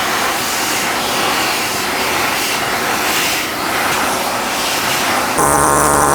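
Vacuum cleaner running with a loud, steady rushing noise. About five seconds in its sound shifts to a steadier, more even hum.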